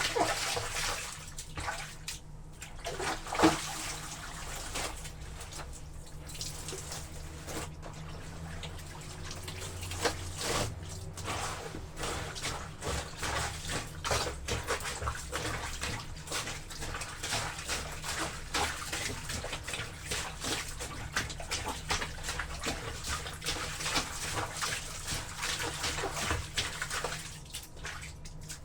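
Wet clothes being trodden underfoot in a tub of water: continuous irregular sloshing and splashing, with one sharper thump about three seconds in.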